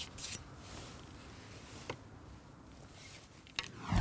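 A fishing pole being shipped back over a pole roller rubs briefly at the start, then faint quiet with a few light clicks. Near the end a whoosh with a low boom swells up, a sound effect for an animated transition.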